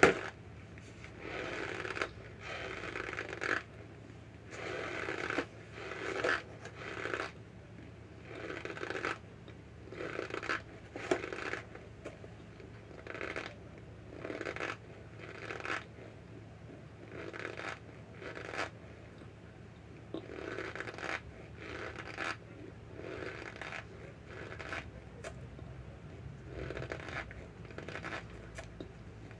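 Close-up mouth sounds of chewing a mouthful of starch: soft crunching chews in a steady run, roughly one every second, with a few sharp clicks among them.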